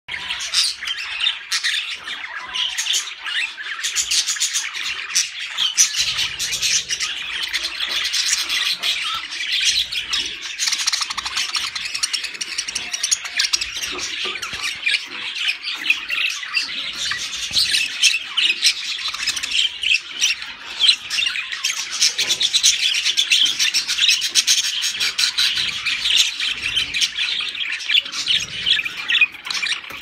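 Several budgerigars chattering and squawking without pause, many quick warbling calls overlapping.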